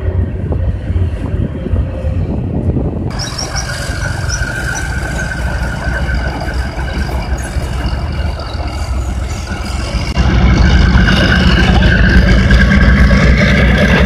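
Tracked armoured vehicles driving over a floating bridge and onto the bank: engines running under load, with a steady high whine. The sound steps up sharply about ten seconds in as a vehicle comes close.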